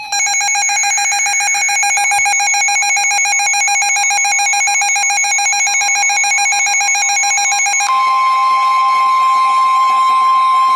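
Weather radio alert: a rapid, pulsing electronic alarm beep, joined about eight seconds in by the steady 1050 Hz NOAA Weather Radio warning alarm tone, which signals that a warning is about to be read.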